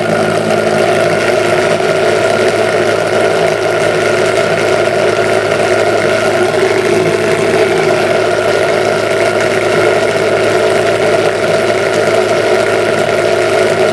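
Small Bedini SSG-style pulse motor running steadily at about 3,240 RPM, its rotor wheel spinning with a steady hum made of several tones. The motor is switched by a surplus CRT horizontal-deflection transistor under test.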